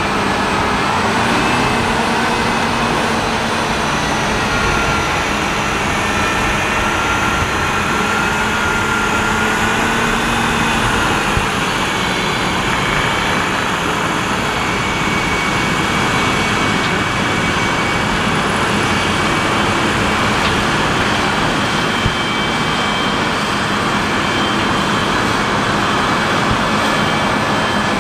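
Twin-engine Caterpillar 637K wheel tractor-scrapers working, their diesel engines running steadily with a high whine that drifts a little in pitch.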